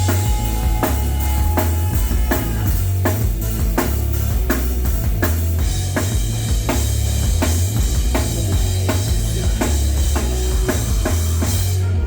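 A band playing live, with the drum kit to the fore: regular bass drum and snare hits over a heavy bass line.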